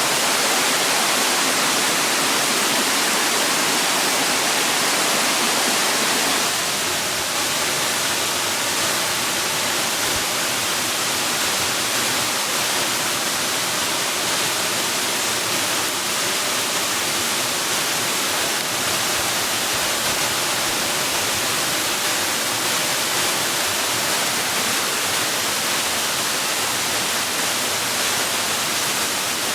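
Steady rushing of falling water, a dense even hiss with no breaks. About six seconds in it settles slightly quieter, with a little more low rumble.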